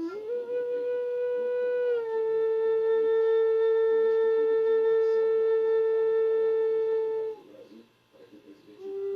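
Long blown notes on a Syiotanka, a wind instrument. The first note slides up as it begins, drops slightly about two seconds in, and is held steady until it breaks off about seven seconds in. A second note starts near the end, rising the same way.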